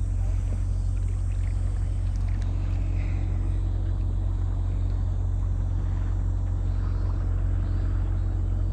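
A fishing boat's engine running steadily: a low, even hum that holds without change.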